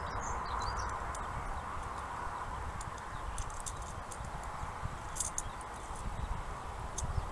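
Distant jet engine noise from an Airbus A319 on the runway: a steady rushing sound, with wind buffeting the microphone in an uneven low rumble.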